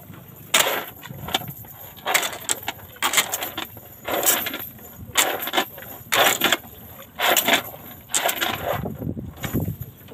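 Lead-weighted cast net rattling and clinking in short bursts, about once a second, as the net and its sinker chain are gathered up in the hands for a throw.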